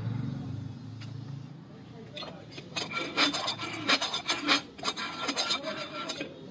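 Hand-turned T-handle valve seat cutter rasping against the valve seat of a new aluminium Eicher cylinder head in a run of short scraping strokes that start about two seconds in. The cutter is cutting the seat in the new head.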